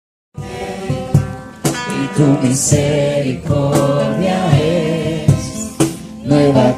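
Group singing a worship song with instrumental accompaniment. A brief, complete dropout of sound sits at the very start.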